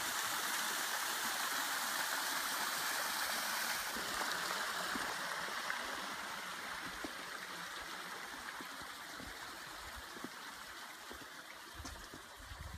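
Water running and trickling over stone, a steady rush that slowly grows fainter after about four seconds.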